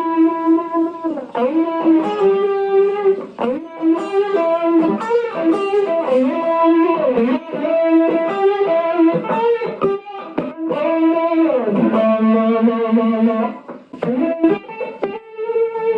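Electric guitar (Ibanez RG 750) through a Behringer 69 Vibe univibe-style pedal in chorus mode, depth and level at 3 o'clock, into a Vox AC4TV amp. It plays a single-note lead line with many bent notes.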